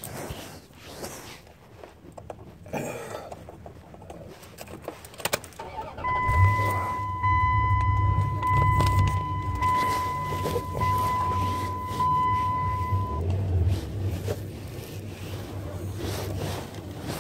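Rustling and clicks inside a car, then the car's engine starts about six seconds in and runs at a steady idle. A steady high electronic warning tone sounds with the start and stops about seven seconds later.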